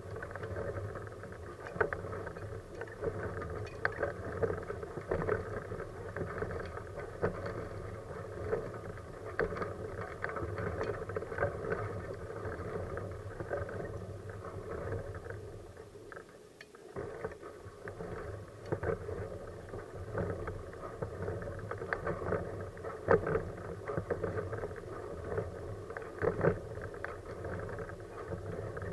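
Kuschall K-series manual wheelchair with a FreeWheel front wheel rolling along an asphalt road: a steady rolling noise with frequent small rattles and clicks, easing briefly a little past halfway.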